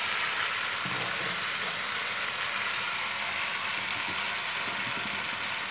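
Katla fish steaks in a thick, reduced gravy sizzling steadily in a nonstick kadai on the gas, the gravy cooked down and the dish finished.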